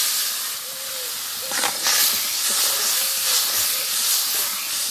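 Water poured into a hot kadai of mustard-paste masala fried in mustard oil, hissing and sizzling steadily as it hits the hot oil and pan and the gravy is stirred.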